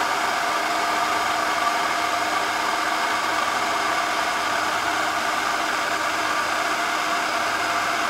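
Electric food processor motor running at a steady speed, an even whine, blending eggs while oil is drizzled in to emulsify them into mayonnaise.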